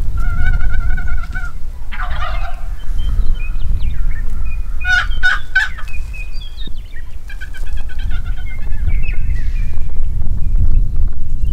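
Wild turkeys calling, with a rapid rattling gobble about five seconds in and other wavering calls before and after it. A steady low rumble of wind on the microphone runs underneath.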